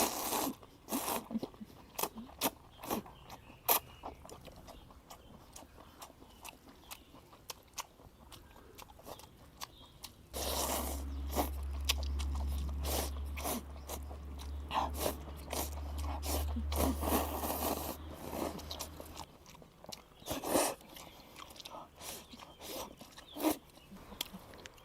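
Close-miked eating of spicy maocai with beef tripe: crunching, biting and chewing, made up of many short sharp clicks. A steady low hum joins in for several seconds in the middle.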